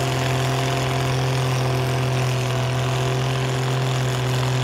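Oliver Super farm tractor's engine running under heavy load as it drags a weight-transfer pulling sled, a loud steady drone that holds one pitch throughout.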